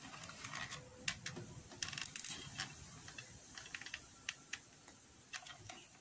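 Light, irregular clicks and taps of small craft items being handled on a tabletop, with a quick cluster of clicks about two seconds in.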